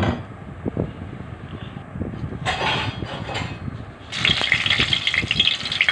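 Mustard oil heating in a kadai: a low rumbling hiss, then from about four seconds in, a louder, dense crackling sizzle as the oil gets hot.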